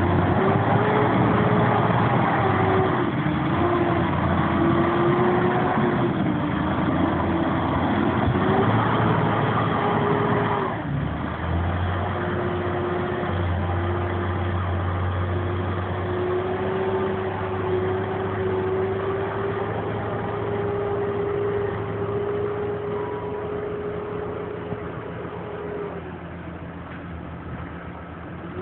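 Massey Ferguson 6475 tractors' diesel engines working hard pushing up a maize silage clamp, with a strong whine over the engine note. The pitch rises and falls for the first ten seconds, then holds steady, and the sound eases off near the end.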